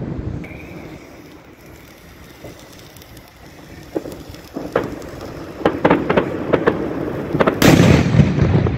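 A firework on the ground crackling. It starts with a few sharp pops about four seconds in, grows into quick cracks, and ends in a loud, dense burst of crackling as it throws sparks. Before that, the rumble of distant fireworks fades away in the first seconds.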